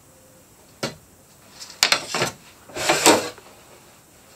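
Wooden skid strips being slid out from under a drawer that sits on newly fitted metal drawer runners: a sharp wooden knock about a second in, a few clicks, then a longer scrape of wood on wood near three seconds.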